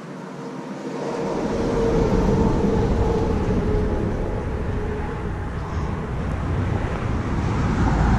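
A car driving by, its engine and tyre noise growing louder over the first couple of seconds and then holding steady with a deep rumble.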